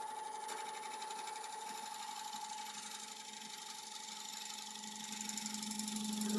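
Wood lathe running with a 1-inch scraper cutting across the face of a spinning laburnum bowl blank: a steady motor whine under a fine, rapid scraping of the tool on the wood, growing louder near the end.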